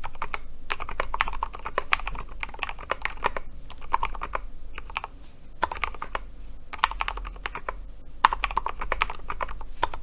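Typing on a custom KBD75 mechanical keyboard with Gateron Silent Black Ink switches, a brass plate and SA-profile PBT keycaps. The keystrokes come in fast runs of a second or two, separated by short pauses.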